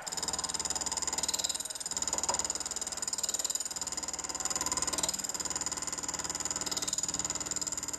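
Bench milling machine running with a boring head, its single-point tool cutting a curved saddle into a metal chimney base casting: a steady high motor and spindle whine with a fast, even flutter, and a few brief patches of harsher cutting noise.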